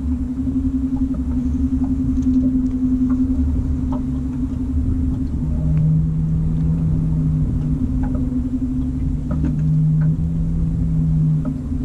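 A boat motor humming steadily, with a lower tone that drops out and comes back twice, over a low rumble and a few faint ticks.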